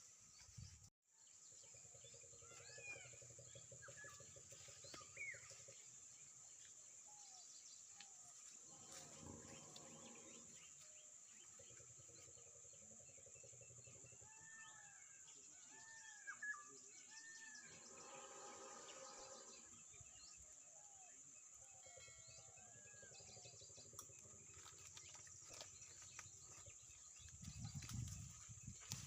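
Faint outdoor nature ambience: birds giving many short, arched chirps and calls over a steady high-pitched insect drone.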